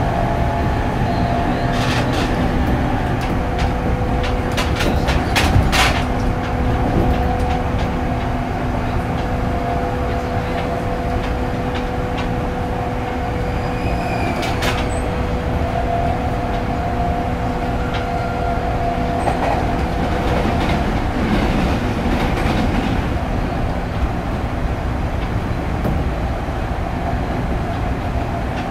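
Running sound inside a JR East 205 series 5000 subseries motor car with a Toyo IGBT-VVVF inverter, cruising at steady speed: wheel-on-rail rumble under a steady, unchanging whine from the traction equipment. A few sharp clicks of wheels over rail joints come about two to six seconds in.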